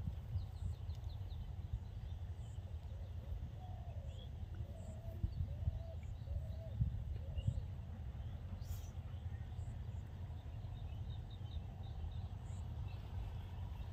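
Birds chirping now and then over a steady low rumble, with a few short, lower, curving calls about four to seven seconds in.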